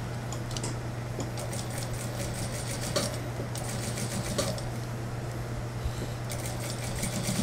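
Industrial lockstitch sewing machine stitching a jacket sleeve into its armhole in short, slow runs: stretches of rapid light clicking from the needle and feed over a steady low hum, with a pause in the middle.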